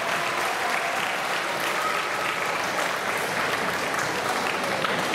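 Audience of students applauding, a steady mass of clapping with a few voices mixed in.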